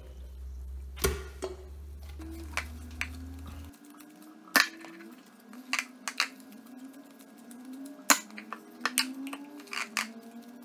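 Balls of sausage meat thrown into a stainless steel sausage stuffer canister, landing with about a dozen sharp, irregular knocks against the metal.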